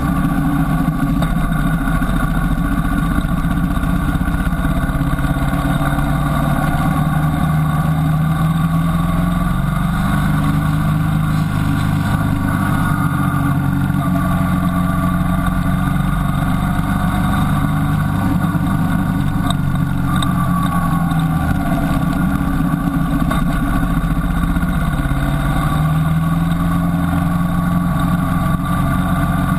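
Motorcycle engine running steadily while under way, heard from on board the bike, its pitch slowly rising and falling with the revs.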